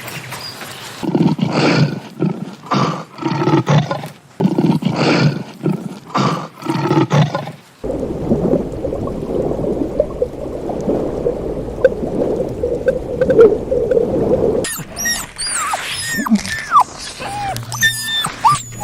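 A large animal roaring in a series of repeated deep grunts, then a steady low rumbling noise. Near the end come high, short chirping squeaks from a small animal.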